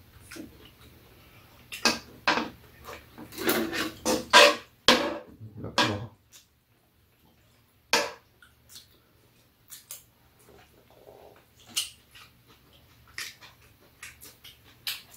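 Metal spoons clinking and scraping against a frying pan as food is scooped up and eaten, with a denser, louder run of clatter a couple of seconds in, then scattered clicks.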